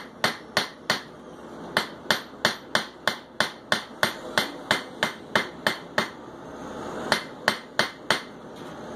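Hand hammer striking hot metal on an anvil, about three blows a second in short runs with brief pauses, as a blacksmith draws out a leaf shape from a pyramid-tipped stem. The hammering stops near the end as a rushing noise grows louder.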